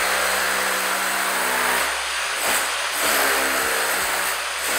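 Power tool cutting a trench in a concrete floor: its motor whine runs under a hissing grind, the pitch dipping and recovering twice as the load changes.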